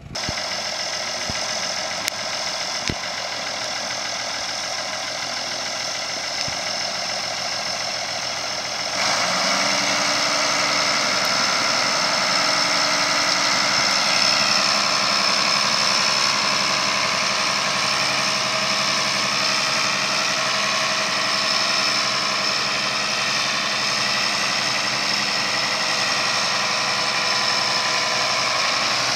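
A 1977 International 986 tractor's six-cylinder turbo diesel engine running steadily. About nine seconds in it becomes louder and fuller as the tractor is driven across gravel.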